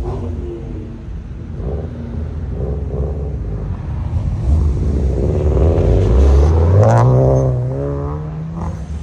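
Car engines running, then one car accelerates hard past the middle, its engine note climbing for a couple of seconds and loudest near the end before easing off.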